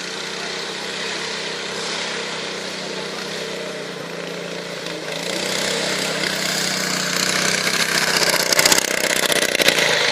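Off-road buggy engine running steadily under load as it drives, growing louder about halfway through, with rough, crackling noise near the end.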